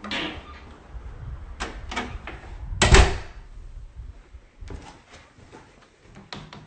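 An interior door being handled and opened: a few knocks and clicks, the loudest about three seconds in, followed by lighter clicks.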